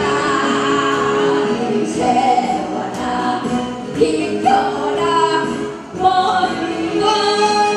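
A woman singing a Korean song into a microphone over an amplified backing track, in phrases of long held notes that break about every two seconds.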